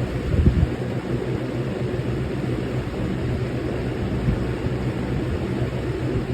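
Lasko Premium box fan with a Marco motor running steadily on its repaired medium speed: a low motor hum under the rush of moving air, with a few low thumps about half a second in.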